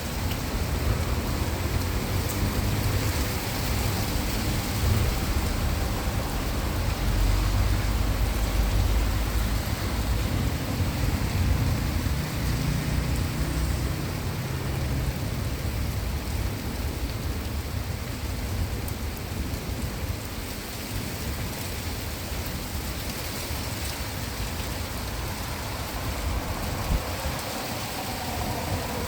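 Heavy rain falling steadily in a thunderstorm, with a long low rumble of thunder that builds in the first few seconds, is loudest about eight seconds in, and rolls away by about halfway through.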